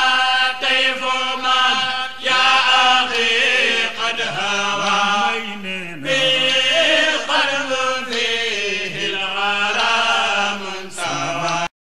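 Male voice chanting Arabic verse into a microphone in long, ornamented phrases; the sound cuts off suddenly near the end.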